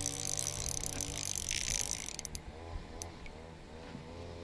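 Fishing reel's drag giving line as a hooked fish runs: a fast, high-pitched ratcheting buzz that stops a little over two seconds in.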